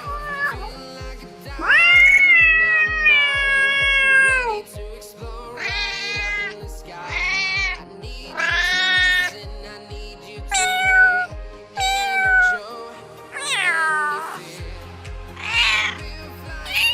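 Domestic cats meowing over and over, about nine separate meows, the first long and drawn out and falling in pitch at its end. Background music with a steady beat plays underneath.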